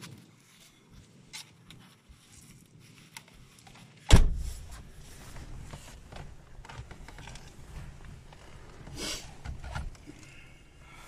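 A car door shutting with one heavy thump about four seconds in, then a low steady rumble.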